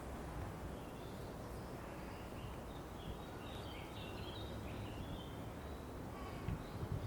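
Outdoor cemetery ambience: a steady low background rumble with small birds chirping and twittering through the middle, and a few soft low thumps near the end.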